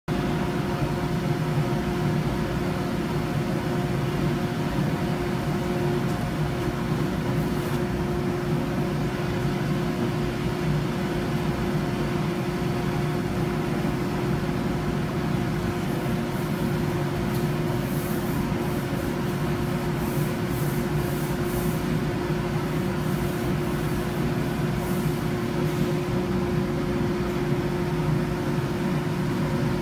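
Industrial machinery running steadily: a constant hum with a steady whine over it, and a run of short, high hisses in the second half.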